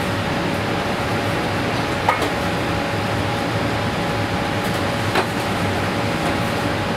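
Steady rush and hum of a commercial kitchen's ventilation, with a faint steady tone running through it. Two light clicks, about two and five seconds in.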